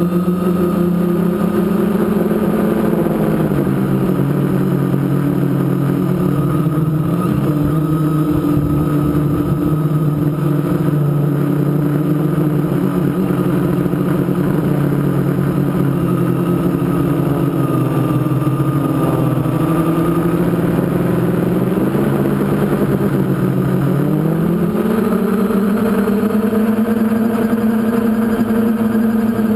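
Mini quadcopter's electric motors and propellers droning steadily, heard through the onboard camera. The pitch drops about three seconds in as the throttle eases, holds low, then rises again about twenty-four seconds in.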